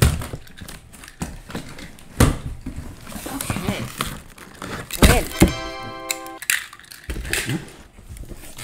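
Cardboard shipping box being opened: packing tape slit with a box cutter and the flaps pulled open, with several sharp thumps of cardboard and hands on the box. A brief steady pitched squeal or tone lasts about a second, a little past the middle.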